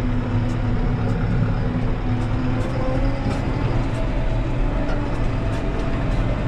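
Farm tractor's diesel engine running at a steady speed, a constant low drone.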